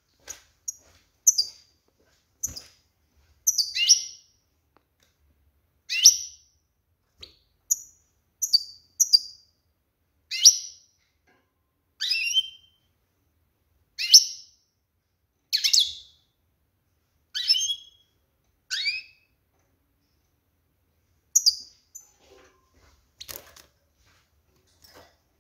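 Female European goldfinch giving short, sharp calls, each sweeping down in pitch, repeated every second or two and stopping a few seconds before the end. This is a female in breeding condition calling to stir males into singing.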